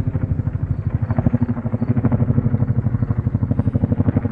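Military helicopter flying over, its rotor blades beating in a rapid, even pulse.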